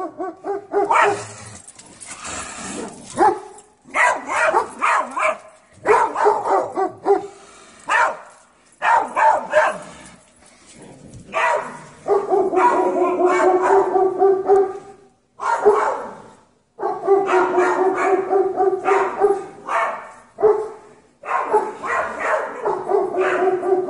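Dogs barking at a cougar in rapid, repeated bouts of a second to three seconds each, with short pauses between: defensive barking to hold the big cat off.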